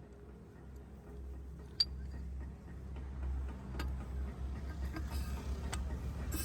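Low mechanical rumble that grows steadily louder, with a few sharp metallic clicks, the loudest about two seconds in.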